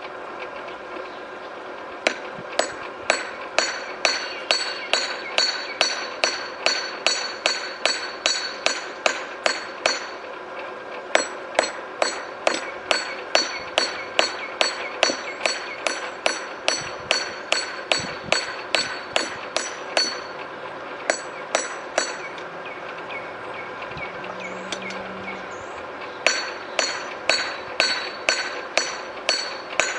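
Hand hammer striking a hot high-carbon steel tool blank on an anvil, about two to three ringing blows a second in runs broken by short pauses, over a steady hum: light blows to straighten the blank and flatten lumps out of its surface.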